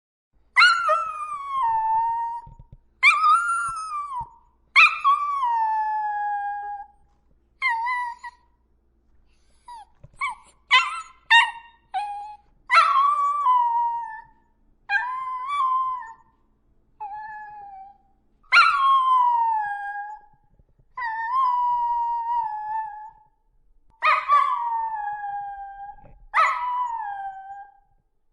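A dog howling: a string of long howls, each starting high and sliding down to a held note, with a few short yips and whimpers between them and brief pauses after each call.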